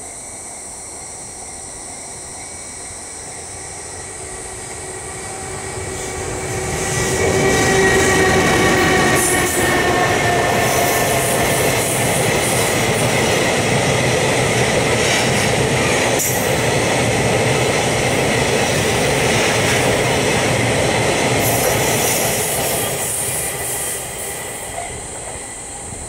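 Level-crossing warning bell ringing while a freight train of tank wagons hauled by an EH200 electric locomotive approaches and passes, its wheels clattering over the rails. The train noise builds from about four seconds in, is loudest near eight seconds, holds steady and then fades near the end.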